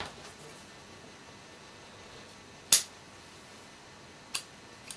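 Scissors snipping a flat green lacing strand: two sharp snips, about a second and a half apart, the first louder.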